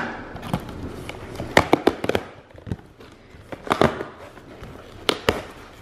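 Cardboard shipping box being handled and its taped flaps pulled open: a string of sharp, irregular cardboard cracks and knocks with softer rustling in between.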